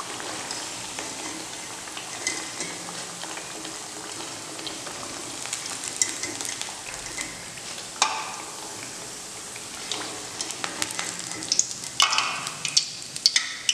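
Rice flour vadas deep-frying in hot oil, sizzling steadily, with sharp clicks and scrapes of a wire-mesh skimmer against the metal wok as the fried vadas are lifted out; the clicks come a couple of times midway and cluster louder near the end.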